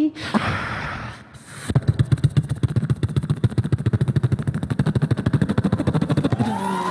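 Beatboxer imitating an approaching warplane with his mouth into a microphone: a short rushing hiss, then from about two seconds in a fast, steady low pulsing like an aircraft engine.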